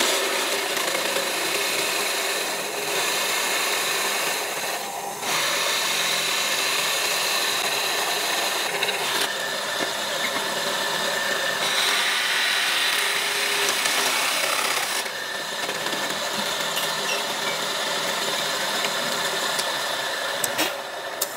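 Drill press running steadily with a hole saw cutting through a wooden plank, a constant motor hum under the rasp of the saw teeth in the wood.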